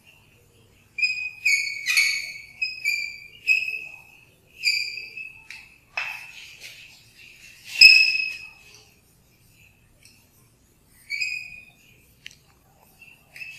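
Chalk squeaking on a blackboard during handwriting: a string of short, high squeals, one per stroke, starting about a second in. Sharp chalk taps fall among them, the loudest about eight seconds in.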